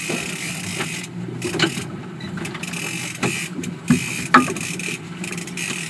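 Fishing reel being cranked as a hooked kingfish is brought in, a mechanical whirring with a few sharp knocks, the loudest about three and four and a half seconds in, over the steady hum of the boat's engine.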